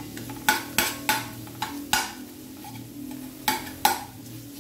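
Metal spoon scraping and clinking against a stainless steel frying pan as chopped onions, green chillies and ginger are stirred and fried, in quick strokes with a pause in the middle. A low steady hum runs underneath.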